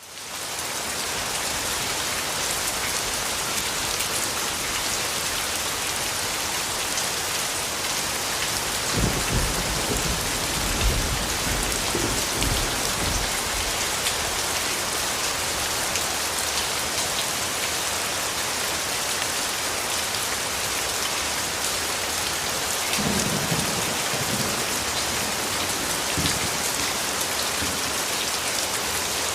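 Steady rain falling, fading in from silence at the start, with low rolls of thunder about nine seconds in and again briefly around twenty-three seconds.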